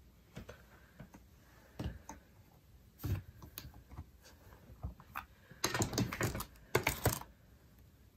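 Light, scattered clicks and taps of a photopolymer stamp, paper and the Stamparatus stamping platform being handled, then a dense run of rapid plastic clicks and rustles, the loudest part, as the clear plastic stamp-set case is handled.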